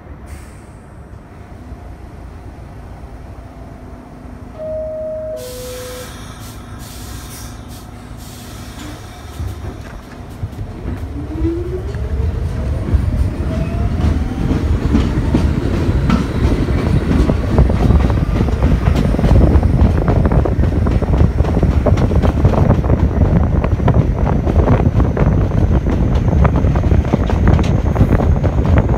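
New York City subway train departing a station. About five seconds in there is a two-note falling door chime and a hiss of air. Then the train pulls away, its traction motors whining upward in pitch while the rumble and clatter of the wheels on the rails grow louder as it gains speed.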